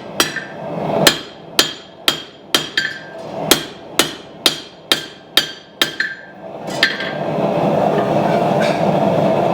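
Hand hammer striking hot knife-blade steel on an anvil, about two blows a second, each blow with a short metallic ring. The hammering stops about seven seconds in, and a steady mechanical hum takes over.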